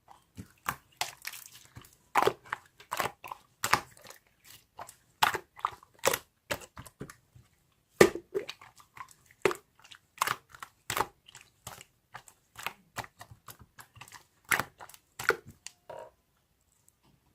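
A series of irregular sharp taps and clicks, roughly one or two a second, that stop about a second before the end.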